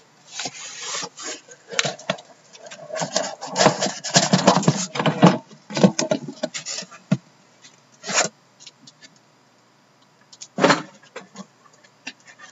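Cardboard card boxes being handled and pulled out of a shipping case: irregular rustling and scraping with sharp knocks, busiest in the first several seconds, then two single knocks about 8 and 11 seconds in.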